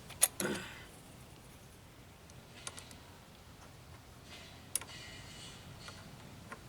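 A few faint, scattered metallic clicks and taps, sharpest near the start and again about two-thirds of the way through, from a wrench being worked on the bleeder screw of a motorcycle's front brake caliper.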